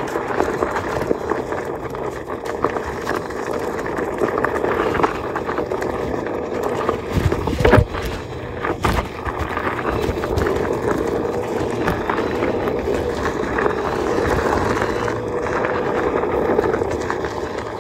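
Steady, wavering propeller hum of a small follow-camera drone over rushing air noise, with one sharp thump about eight seconds in.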